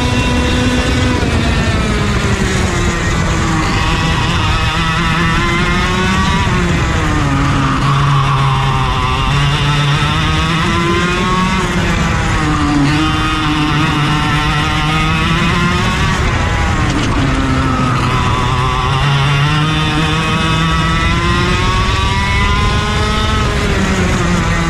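Racing go-kart engine under hard use, its pitch climbing steadily over several seconds and then falling away sharply, again and again about every five seconds: accelerating along straights and lifting off for corners.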